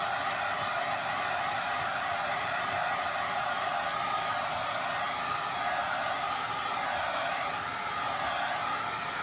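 Hand-held hair dryer running steadily, a constant rush of blown air.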